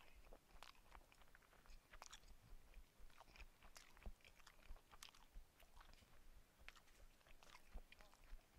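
Faint, close-up chewing: irregular wet clicks and smacks of a person eating a mouthful of food near a headset microphone.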